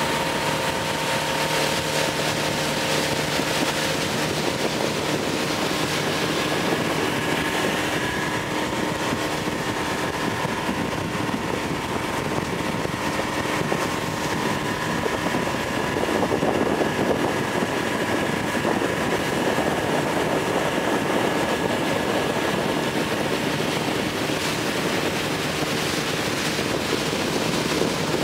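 Mercury 60 hp outboard motor running steadily while the boat is underway, with wind and water noise.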